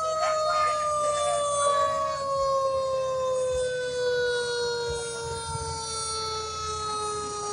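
Fire engine siren winding down, a single wailing tone sliding slowly and steadily lower in pitch.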